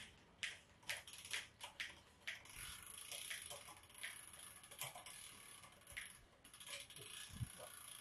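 Bicycle drivetrain with an LTWOO RX rear derailleur turned by hand on a workstand: chain running over the cassette and derailleur pulleys as the rear wheel spins, with scattered sharp clicks. Faint.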